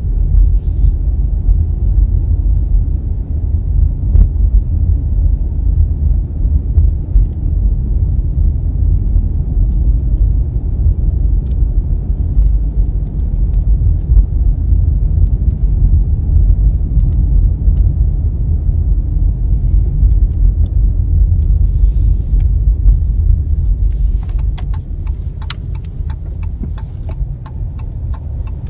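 Car cabin noise while driving: a steady, loud low rumble of road and engine. In the last few seconds a run of sharp clicks joins it.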